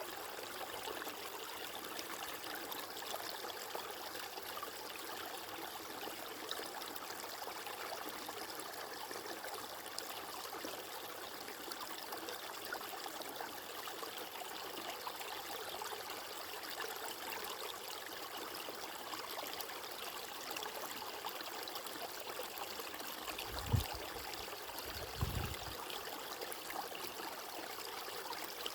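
Running water, an even steady rush and trickle. Near the end, two brief low thumps break in.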